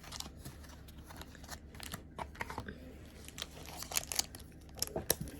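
Foil booster pack wrapper crinkling and tearing as a trading-card pack is opened, with many irregular crackles and small clicks.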